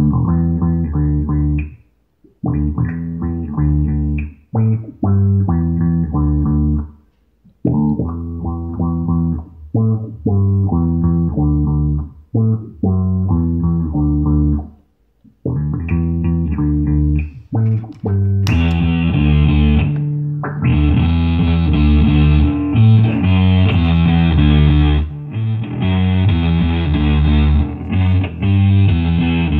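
Electric bass guitar playing a riff in short phrases with brief gaps. About eighteen seconds in, a fuzz pedal comes on and the tone turns bright and distorted, played without breaks.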